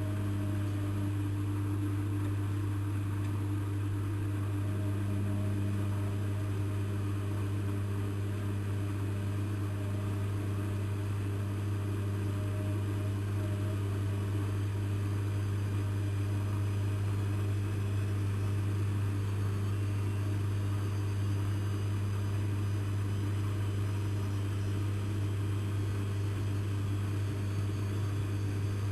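Lloyds 825 washing machine running with a steady low hum and no sharp changes.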